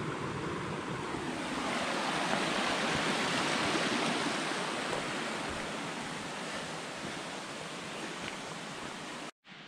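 Rushing water: a steady noise that swells a little and then eases off, cutting off suddenly near the end.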